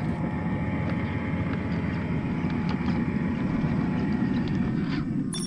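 Traxxas TRX-4 1/10-scale RC crawler's electric motor and gear drivetrain running with a faint steady whine over a dense low rumble as it crawls over dry branches and forest debris. A short crackle near the end.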